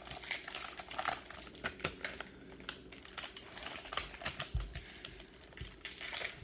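A trading-card pack's wrapper being torn open and the cards handled, making a run of irregular small clicks and crinkles. There is a low thump about four and a half seconds in.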